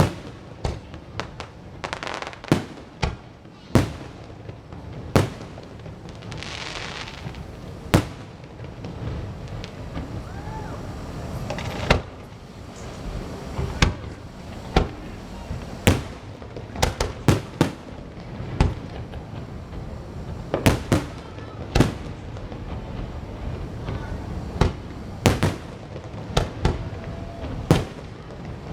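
Fireworks going off: a long run of sharp bangs at irregular intervals, some in quick clusters of two or three, with a brief hiss about six or seven seconds in.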